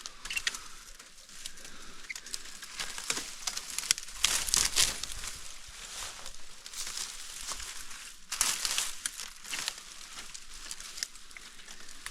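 Irregular crackling and rustling of cut brush and branches being handled, with scattered snaps and two denser bursts, about four seconds in and again near the end.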